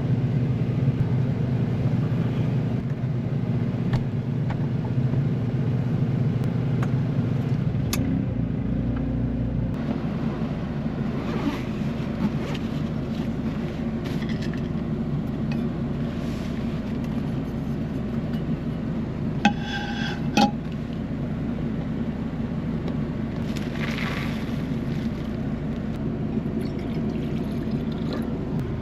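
Portable gas inverter generator running steadily, powering a camper's air conditioner, a loud constant hum that shifts in pitch a little about 8 to 10 seconds in. Two brief high-pitched sounds about a second apart come about two-thirds of the way through.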